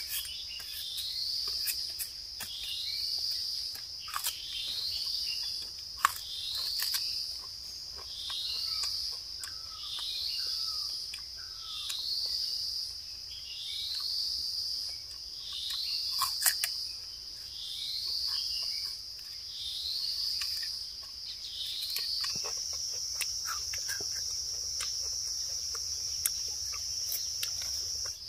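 An insect calls on one high note in swelling pulses every couple of seconds, then holds the note steady for the last six seconds or so. A few sharp clicks and snaps from a machete peeling bamboo shoots cut through the call.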